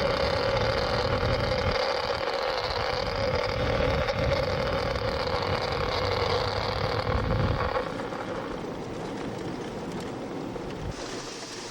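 Car driving on a snowy road, heard from inside the cabin: steady engine and road noise with a steady hum, which gets quieter about eight seconds in.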